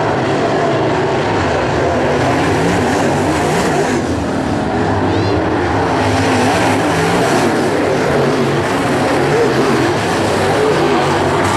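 Several crate late model race cars' V8 engines running on a dirt oval: dense, steady engine noise with pitches wavering as the cars come and go.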